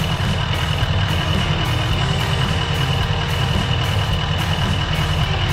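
Duramax 6.6 L V8 turbodiesel in a Chevy Silverado 2500HD idling steadily, as it runs for the transmission fluid level check.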